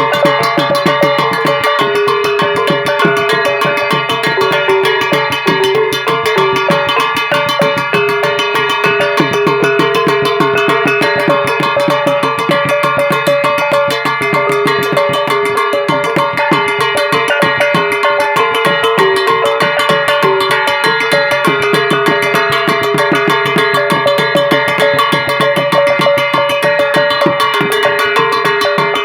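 Music with a fast, steady drum and percussion beat under sustained pitched tones, running evenly throughout.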